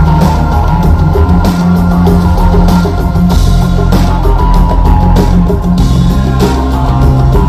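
Loud rock music with electric guitar and drum kit.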